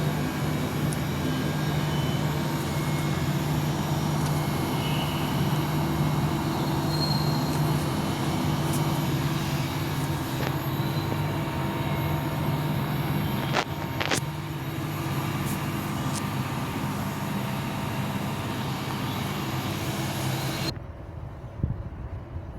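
Daikin 2.2-ton inverter split air conditioner running with a steady mechanical hum and several steady tones, and a few light clicks. The sound stops abruptly near the end, leaving only a low rumble.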